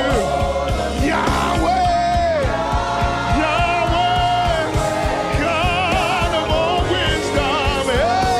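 Live gospel worship band music: drums keep a steady beat under bass and keys, with a long held melody line that wavers with vibrato.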